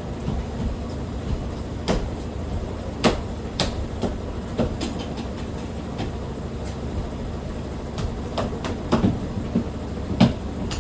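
Washing machine on a fast spin cycle: a steady low rumble with irregular sharp knocks and rattles on top, several close together near the end.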